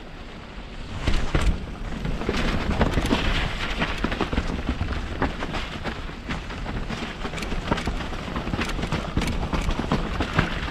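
Mountain bike riding down a rough, wet downhill trail, heard from the rider's GoPro: a continuous rumble of wind and tyres on dirt, broken by frequent sharp knocks and rattles as the bike hits roots and rocks.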